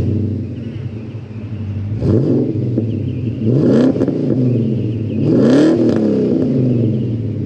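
HSV VS Clubsport's 5.0-litre V8, breathing through a twin-cat, 100-cell centre muffler exhaust that is straight-piped at the rear, accelerating. The revs climb three times, about a second and a half apart, and fall back between pulls, the last pull the loudest.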